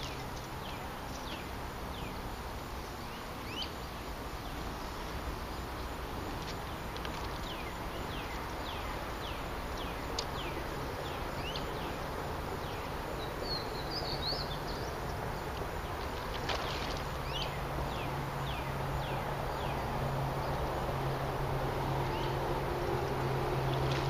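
Outdoor waterside ambience: a steady background hiss with many short, high, downward-sweeping chirps from birds or insects repeating throughout. A low steady hum comes in and grows louder over the last several seconds.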